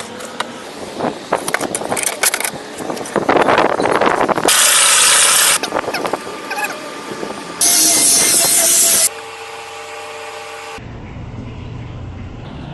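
Woodworking shop sounds cut together in quick succession: knocking and clatter, then two loud, even bursts of a power tool about a second each that start and stop abruptly, ending in a steady low hum.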